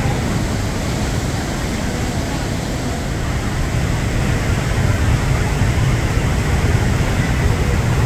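Steady, dense roar of a river in full flood, its muddy water surging over rocks, with a heavy low rumble beneath. The river is swollen by water released from a dam and by continuing rain.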